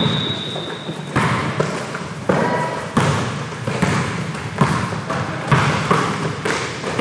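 Basketball being dribbled on a hardwood gym floor, bounces coming about every half second to second over gym noise. A high steady whistle note, likely a referee's whistle, stops about a second in.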